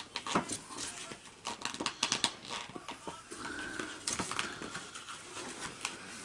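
Packaging being worked open by hand to free a coin: irregular crinkling, crackling and sharp clicks.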